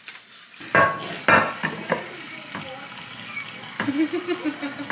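Sharp knocks and plastic clatter from takeout containers and the camera being handled on a kitchen counter, the two loudest knocks close together in the first second and a half. A short wavering tone near the end.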